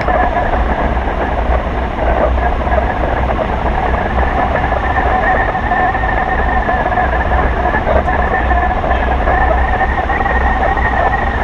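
Wind rushing steadily over a hang glider's boom-mounted action camera in flight, with a steady whistle running above the rush.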